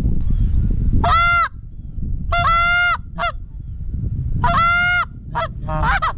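Canada goose honks, about seven in a row: a few longer, level honks and several short clipped ones, the last ones bending in pitch. A steady low rumble of wind on the microphone runs underneath.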